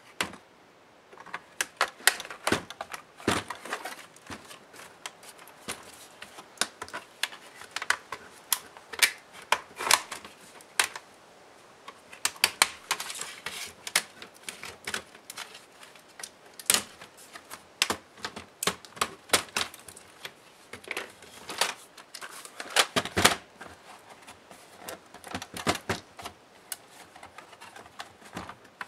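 Plastic clips of an Alienware M17x R3 laptop's palmrest clicking and snapping as the shell is pried and lifted off the base: many sharp clicks at an irregular pace, with a short stretch of scraping about halfway through.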